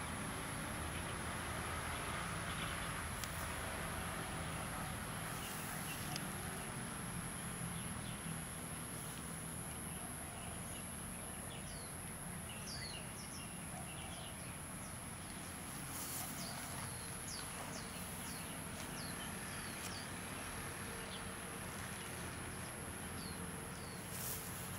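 Outdoor ambience: a steady high-pitched insect drone, with short bird chirps now and then, mostly in the second half.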